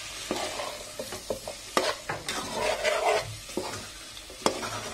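Metal spatula stirring and scraping taro root pieces and chopped tomato around an aluminium pot, with irregular clinks against the pot, over a light sizzle of frying oil.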